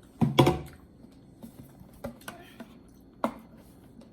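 Tableware clicks and knocks while eating: a heavier knock with a low thud about half a second in, then a few sharp, spaced-out clicks of a utensil against a plastic food container.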